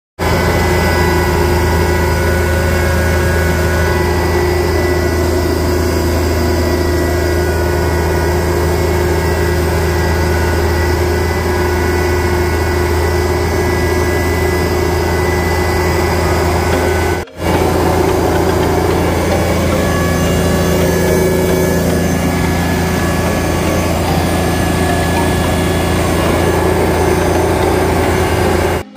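A John Deere lawn tractor's engine running steadily as it pushes snow, heard from the driver's seat as a constant low hum. It cuts out for a moment about 17 seconds in.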